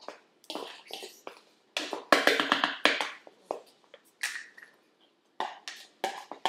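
Irregular taps and knocks, with a quick run of clattering strokes about two seconds in.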